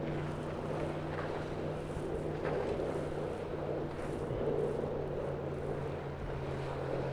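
Steady rushing of water and wind around a Tornado racing catamaran sailing fast downwind in a gust, with a low steady hum underneath.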